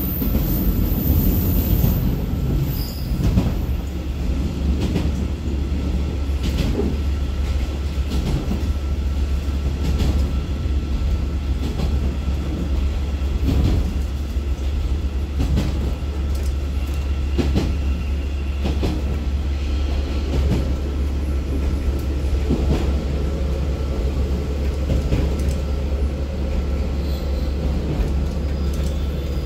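KiHa 47 diesel railcar running, heard from just behind the driver's cab: a steady low diesel drone with short knocks and rattles now and then.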